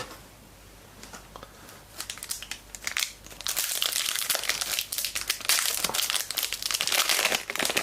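Plastic foil trading-card pack wrapper crinkling as it is handled and opened. The crinkling starts softly about two seconds in and is loud and dense from about three and a half seconds on.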